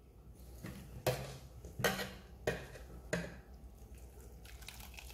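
Hands handling wet grated coconut pulp in a stainless-steel mesh strainer, with four sharp clinks or knocks against the metal, about one every 0.7 s, then a few fainter taps near the end.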